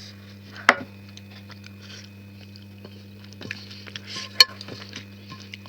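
Close-up eating sounds: soft wet chewing and mouth noises with small ticks, broken by two sharp clicks, one about a second in and a louder one past four seconds, over a steady low hum.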